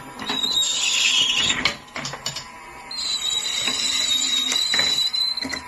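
Marbles rolling and clattering down a wooden marble run track, a steady rolling rumble with a high whine and scattered clicks as they hit the wood, easing off briefly in the middle before picking up again.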